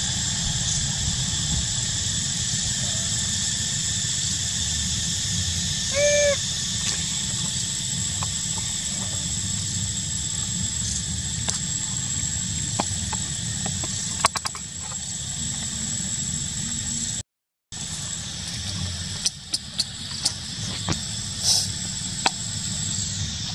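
Forest ambience: a steady, high-pitched insect drone over a low rumble. A single short hoot-like call comes about six seconds in, with a few light clicks near the end.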